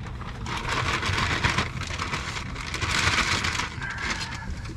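Hissing, splashing water noise that swells about halfway through and fades near the end, over a constant low rumble.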